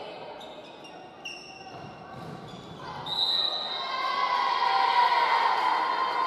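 Sneakers squeaking on a hardwood gym floor during a volleyball rally, then players and spectators cheering and shouting from about three seconds in, growing louder toward the end, in a large echoing gym.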